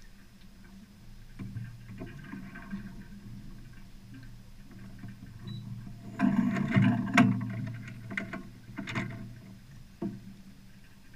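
Water washing along a sailboat's hull, with a run of sharp clicks and knocks starting about six seconds in, loudest about a second later, as the jib car is moved along its track on the side deck of a 1972 Dufour Arpege. A single click follows near the end.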